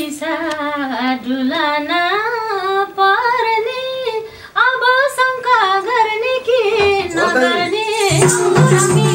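A woman singing a Nepali dohori verse solo into a microphone, one long ornamented line whose pitch bends and wavers. About eight seconds in, the band's accompaniment comes in with sustained instrument notes and drum strokes.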